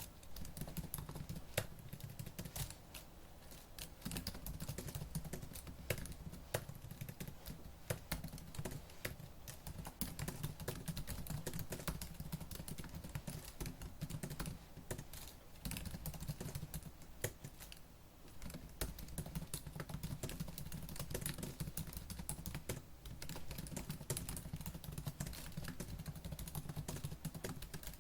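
Fast typing on a laptop keyboard: a rapid, continuous patter of key clicks, with brief pauses now and then.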